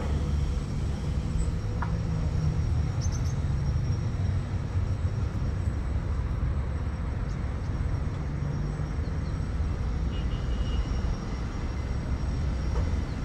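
Steady low background rumble with no clear source, with a few faint short high beeps or ticks on top.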